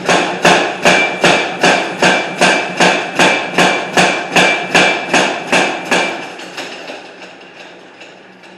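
Iron bloom being forged into a square bar: a hammer strikes the hot iron in a steady run of about sixteen blows, roughly two and a half a second, with a high ringing tone under them. The blows stop about six seconds in.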